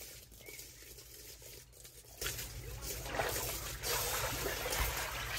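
Water trickling and lapping in a small above-ground pool as people move through it, faint at first and louder from about two seconds in.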